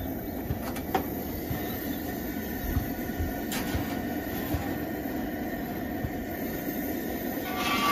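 Vintage Coleman 425C white-gas two-burner stove running steadily under a Coleman camp oven. A few light metal knocks come through as the oven door is opened and a cast-iron pan is set on the rack, the last and loudest near the end.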